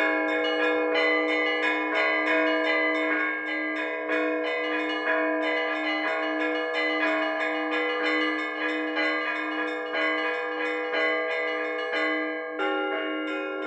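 Orthodox church bells rung in a full peal: the small bells are struck rapidly, several strokes a second in a repeating pattern, over a deeper bell that keeps ringing underneath. Near the end a heavier stroke comes in and the pattern changes.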